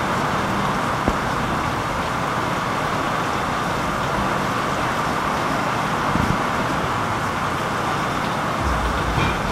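Heavy tropical-storm rain and wind: a steady hiss of downpour with a gusty low rumble, picked up through a waterproof camera housing, with a couple of soft low thumps about six seconds in and near the end.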